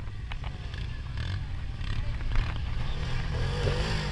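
Side-by-side UTV engine running in loose sand, getting louder and revving up with a rising pitch near the end as it pulls through the sand. A few sharp knocks sound over it.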